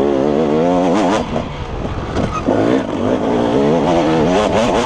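KTM 300 EXC single-cylinder two-stroke dirt bike engine revving hard, its pitch rising and falling quickly as the throttle is worked on a rough trail, with a few sharp knocks.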